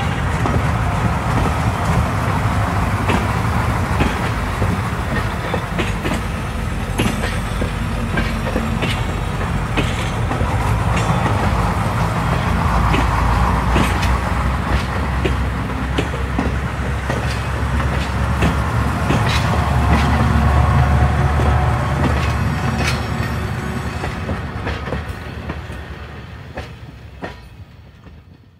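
Talgo sleeper train running, heard from inside a carriage's toilet compartment: a steady low rumble with scattered sharp clicks and knocks, fading out near the end.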